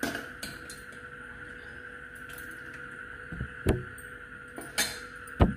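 A metal spoon scooping potato curry out of a metal pressure cooker onto a plate: a few clinks and knocks of spoon against pot and plate, the loudest near the end, over a faint steady hum.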